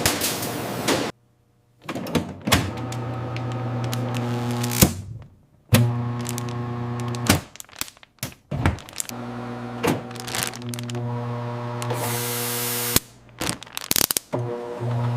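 Processing machinery running with a steady hum, punctuated by sharp clacks and thunks, the hum breaking off abruptly several times.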